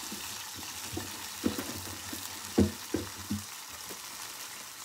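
A sweet-and-sour lemon syrup poured over tempered mustard and sesame seeds sizzling steadily in a small saucepan on a gas flame. A few soft knocks come between about one and a half and three and a half seconds in.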